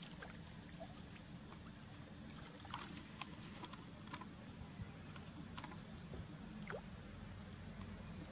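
Faint sloshing and small splashes of shallow pond water stirred by a macaque mother and baby moving in it, with a few scattered drips and clicks. A steady low rumble and a thin, steady high tone run underneath.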